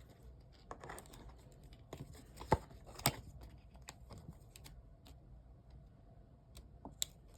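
Light clicks and taps of a rigid plastic top loader being pried open and handled while a trading card is worked into it. Scattered small clicks, with a few sharper ones about two and a half and three seconds in and again near the end.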